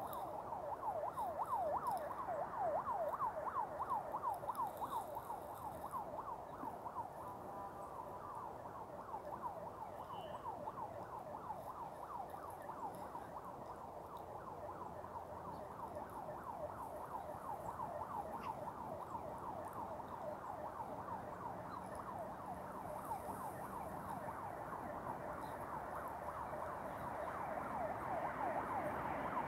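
A distant emergency-vehicle siren on a fast yelp, its pitch sweeping rapidly up and down over and over without a break, a little louder in the first few seconds and again near the end.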